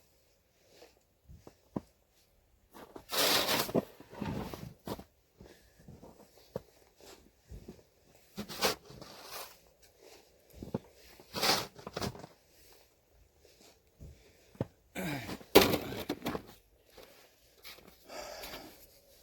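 Snow shovel scraping and pushing snow, in several separate strokes a few seconds apart.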